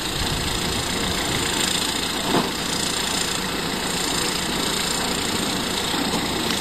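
Tractor engine running steadily, driving a firewood processor.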